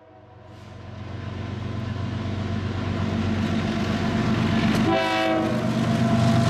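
Norfolk Southern freight train's diesel locomotives approaching, their engine rumble growing steadily louder. The locomotive horn sounds one short blast about five seconds in.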